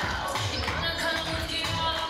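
Kizomba dance music with a steady beat.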